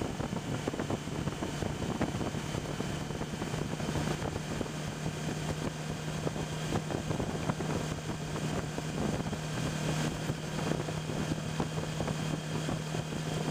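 Suzuki V-Strom motorcycle cruising at a steady speed: its V-twin engine runs with an even, unchanging note under wind and road noise.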